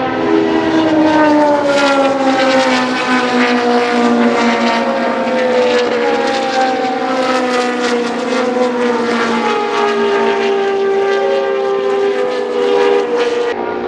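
Historic Formula 1 racing car engine running at high revs, a high multi-tone howl whose pitch slowly falls over several seconds.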